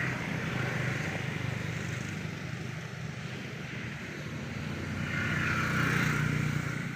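A steady engine hum, with a hiss that swells near the end.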